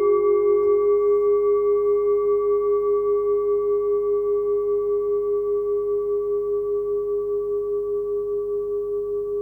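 Forged singing bowl tuned to G-sharp (about 407 Hz, 14 cm across) ringing on after being struck. It holds one clear tone with fainter higher overtones, pulsing in a slow, even wobble as it gradually fades.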